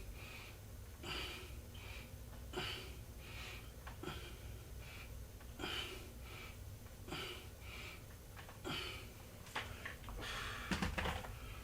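A person breathing hard in a steady rhythm, a breath roughly every second, with a few sharp clicks near the end.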